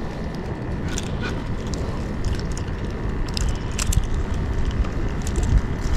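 Steady wind noise on the microphone, with a few scattered light clicks.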